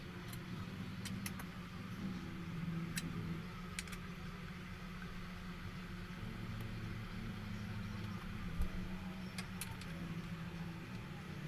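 A steady low mechanical hum, with scattered light clicks and one dull thump about two-thirds of the way through.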